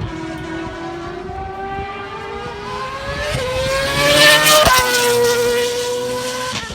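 A Ferrari racing car's engine accelerating hard, its pitch climbing steadily. About two-thirds of the way through, at its loudest, the pitch drops sharply, then the engine holds a steady note as it fades a little.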